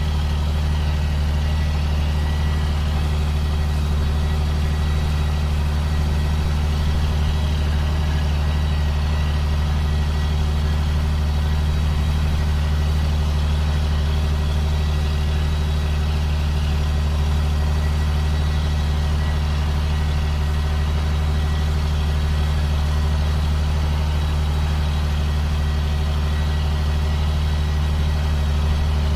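Steady low drone of a 2005 John Deere sprayer's diesel engine running at constant speed, with a thin, steady high whine over it.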